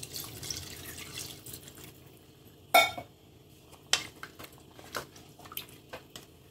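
Spatula stirring mutton and water in an aluminium pressure cooker: liquid sloshing, with sharp knocks of the spatula against the pot, the loudest a little under three seconds in and another about a second later, then a few lighter taps.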